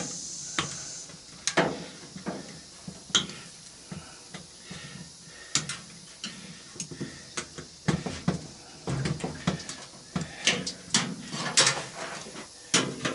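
Irregular clicks, knocks and clanks of hand tools and metal and plastic parts being handled while wiring and clips are worked loose inside a washing machine, with a brief hiss in the first second.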